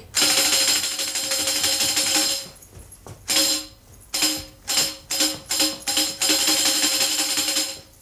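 Tambourine jingles, shaken fast for about two and a half seconds, then struck in a handful of slower separate beats, then shaken fast again near the end. The fast playing is the cue to run and the slow beats the cue to walk.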